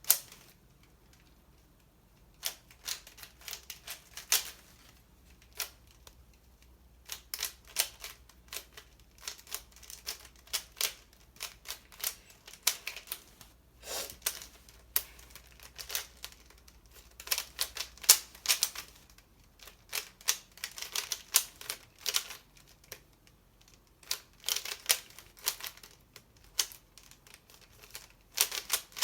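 Rubik's Cube being turned quickly during a speed solve: rapid runs of plastic clicks as the layers snap round, in bursts with short pauses between sequences.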